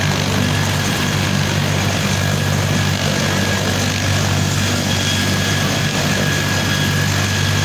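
Helicopter running with its main rotor turning: a steady low drone with a thin, steady high whine from the turbine engine over it.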